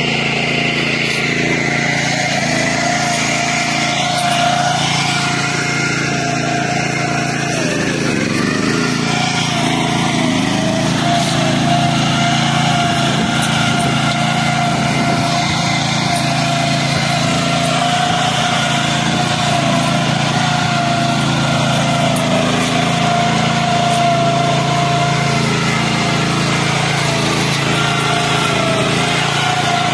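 The small engine of a Kummucit KM840/14 walk-behind meadow mower running steadily at a constant speed while cutting tall grass.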